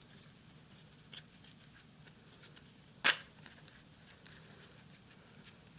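Trading cards being handled on a table: a few faint ticks and one sharp tap about three seconds in.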